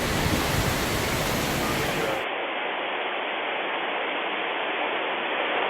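Hurricane-force wind gusting and buffeting the microphone with heavy low rumble. About two seconds in it cuts abruptly to a duller recording of steady rushing wind noise.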